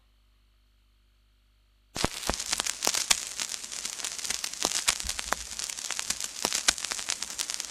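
Old gramophone record surface noise: hiss with dense crackle and sharp clicks from the stylus in the lead-in groove, starting about two seconds in, before the music begins.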